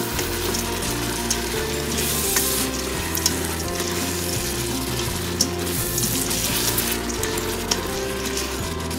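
Soaked rice and boiled chickpeas frying in oil in an Instant Pot's inner pot on sauté mode: a steady sizzle that swells in a couple of stretches as the rice is stirred. A spatula gives occasional short scrapes and taps against the pot, over low background music.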